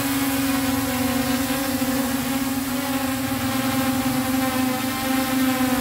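Small quadcopter hovering low in position hold, its four motors and propellers making a steady buzzing hum whose pitch wavers only slightly.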